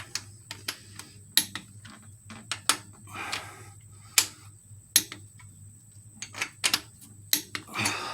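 Sharp metallic clicks and clinks at irregular intervals from a torque wrench and socket being worked bolt by bolt on an engine's cylinder head bolts, each already tight and being checked at 45 foot-pounds.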